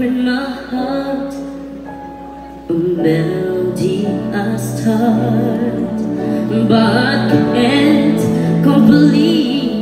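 Young boy's high singing voice with vibrato into a microphone, backed by a live band, on a loud concert sound system. The music eases off for a moment, then comes back in fuller about three seconds in.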